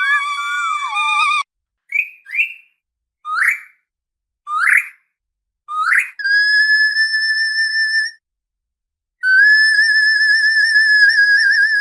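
Orca calls: a pitched call at the start, then five short rising calls, then two long high whistles, the last one wavering. The calls are separated by dead silence.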